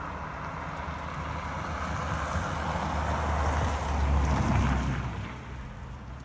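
A vehicle passing by: a rushing noise with a deep rumble that swells over a few seconds, is loudest about four to five seconds in, and then fades away.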